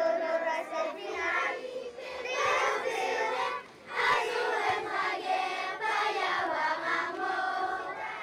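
A group of children singing a song together, with a brief pause between phrases about three and a half seconds in.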